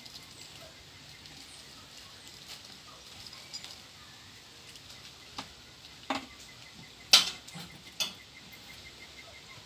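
Clear plastic bag crinkling in a person's hands, with four sharp crackles in the second half, one much louder than the rest.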